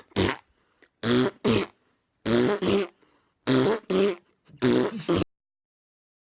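A dog giving short, gruff, throaty vocal sounds in pairs, five pairs about a second apart, then cutting off abruptly.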